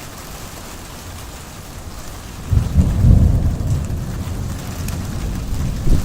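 Steady rain falling, then about two and a half seconds in a thunder rumble breaks in suddenly, low and loud, peaking just after and rolling on as it slowly fades.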